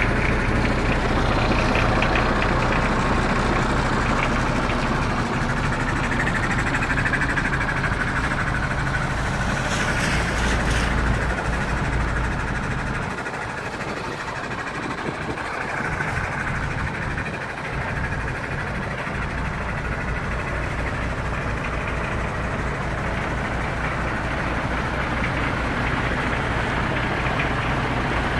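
MAN TGX 26.440 tractor unit's six-cylinder diesel engine idling steadily, heard close up. The low rumble thins out for a few seconds about halfway through, then comes back.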